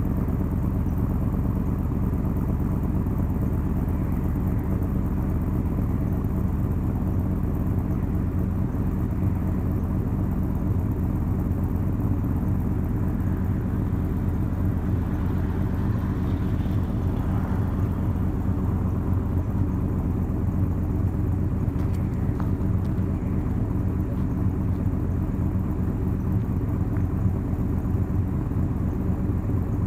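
6.0-litre LQ4 V8 in a Chevrolet Suburban idling steadily while warming up after a cold start, heard from behind through a single 3-inch exhaust with a high-flow Magnaflow cat and a Borla Pro XS muffler.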